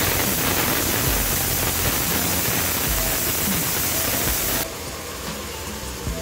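Chopped tomatoes sizzling in a hot pot, a loud steady hiss that cuts off suddenly about four and a half seconds in.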